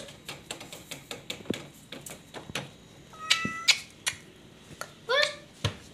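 A cat meowing twice: a short high call about three seconds in and a brief rising one near the end, with scattered light clicks and taps throughout.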